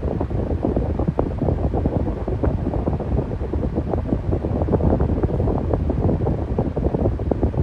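Electric fan running steadily, its airstream buffeting the microphone in a continuous low, fluttering whoosh.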